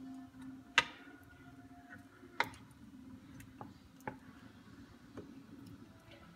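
Wooden spoon stirring a thick fruit mixture in a saucepan, knocking against the pan in a few sharp, irregular taps, the loudest about a second in.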